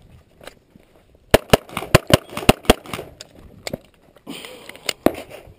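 Handgun fired rapidly at targets, starting about a second and a half in: roughly ten sharp shots, mostly in quick pairs, with a pause of about a second before the last pair.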